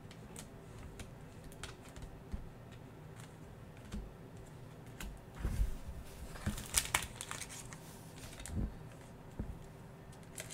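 Trading cards being handled on a tabletop, with scattered soft clicks and taps. About six and a half to seven seconds in comes a louder burst of crinkling as a foil trading-card pack wrapper is torn open.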